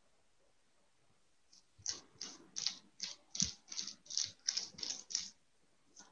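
Paintbrush dabbing thick acrylic paint onto bubble wrap. About ten short brushing strokes at roughly three a second start about two seconds in.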